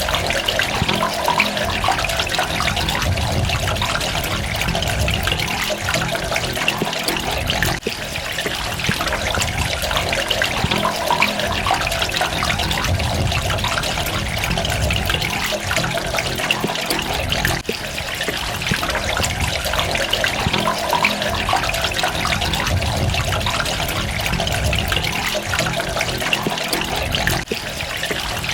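Water running and splashing steadily, a dense patter of small droplets over a continuous rush.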